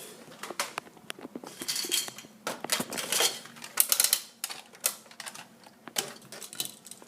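Plastic Nerf blasters being handled: irregular sharp clicks and short clattering rattles of plastic parts, magazines and foam darts.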